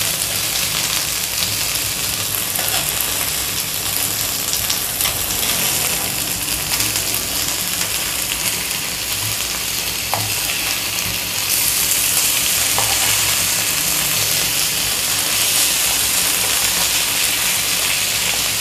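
Masala-coated seer fish (vanjaram) steaks sizzling steadily on a hot tawa, the sizzle getting louder a little past halfway, with a few light scrapes and taps of a metal spatula as the steaks are turned. This sizzle is what, in the cook's words, has to die down before the fish is cooked through inside.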